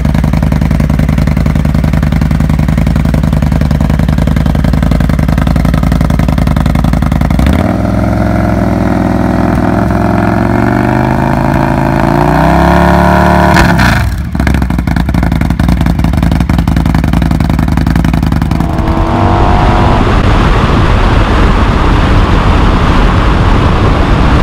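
Victory Octane's liquid-cooled V-twin idling steadily. About a third of the way in it is revved, and its pitch climbs for several seconds before dropping off sharply when the throttle is released. In the last few seconds this gives way to a motorcycle engine and wind rush heard while riding at speed.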